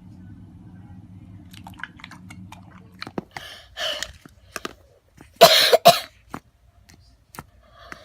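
A person coughing, two sharp coughs close together in the middle being the loudest, with a smaller cough-like burst shortly before. Small scattered clicks come before, over a low steady hum that stops about three seconds in.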